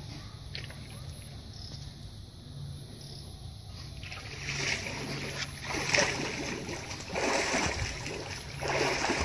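Water splashing and sloshing around a boat moving on water. It comes in uneven surges from about four seconds in, over a low steady hum.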